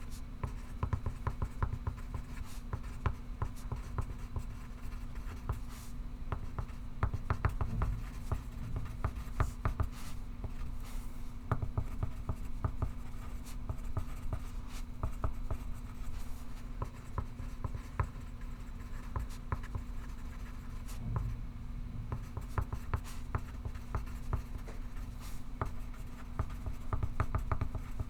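Pencil writing on paper: quick scratching strokes in irregular runs, over a steady low room hum.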